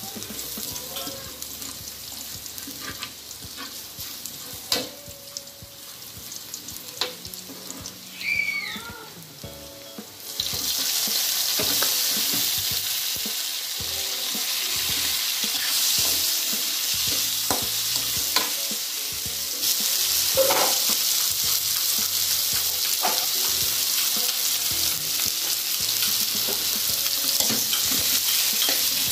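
Minced garlic frying in oil in a nonstick wok, with a spatula scraping and clicking against the pan. About ten seconds in, chunks of pineapple go into the hot oil and the sizzle turns much louder and steady as they are stirred.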